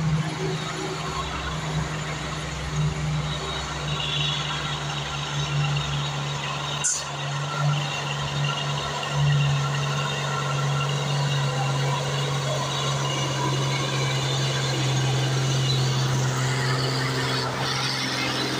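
Heavy diesel cargo truck engine running under load at steady revs as the truck passes slowly, with road and tyre noise. A single sharp click about seven seconds in.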